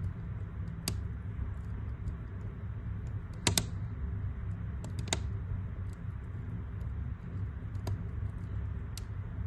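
Wood fire crackling in a fireplace: a steady low rumble with scattered sharp pops, about five in all, the loudest a quick double pop about three and a half seconds in.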